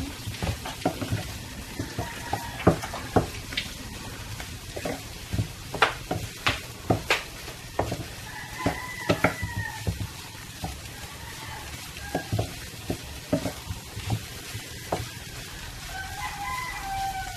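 Wooden spatula stirring and tapping in a nonstick frying pan, with sharp clicks from the strokes, while scrambled egg with garlic and onion sizzles. A rooster crows twice in the background, about halfway through and near the end.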